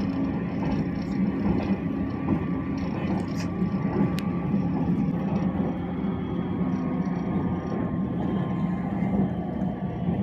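Steady running noise of a train heard from inside the passenger car: a low rumble and hum with faint higher tones.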